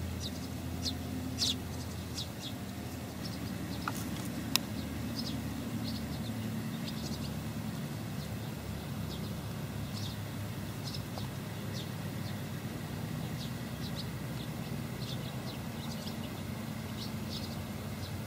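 Outdoor ambience: a steady low rumble under scattered short, high chirps of small birds, with one sharp click about four and a half seconds in.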